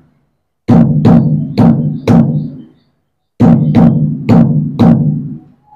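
Dhol bass strokes of the Puneri dhol pattern, played on a Roland HandSonic electronic hand-percussion pad's dhol voice: two phrases of four deep strokes each, with a short pause between them.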